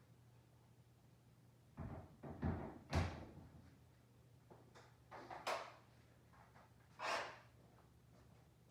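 A handful of short, separate knocks and clunks from tools and parts being handled, the sharpest about three seconds in.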